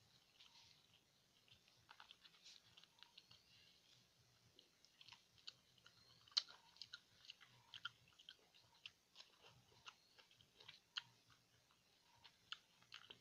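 Faint wet chewing and mouth clicks of someone eating pineapple chunks by hand, in irregular small smacks with a sharper click about six seconds in.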